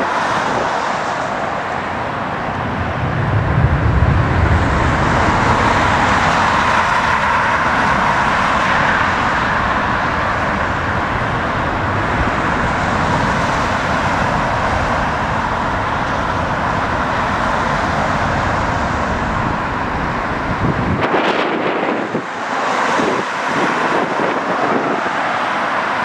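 Jet engine noise from a twin-engine Delta airliner climbing out after takeoff, a steady rushing roar with a deeper rumble a few seconds in; the low rumble drops away near the end.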